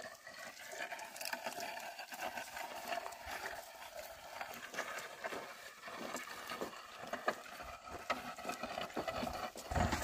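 Irregular hoof steps and scraping of a yoked pair of oxen pulling a wooden plough through dry, dusty soil, with a sharper knock about seven seconds in.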